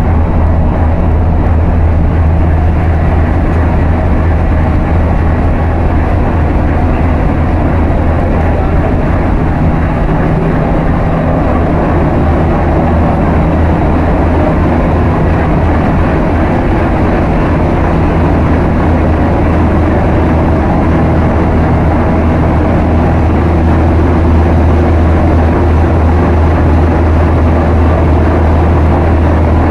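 Loud, steady drone of a container ship's engine room machinery running, with a deep constant hum under a broad machine roar.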